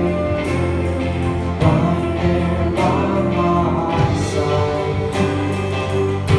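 Live gospel music: a band playing a passage of a gospel song, with held chords and steady beats.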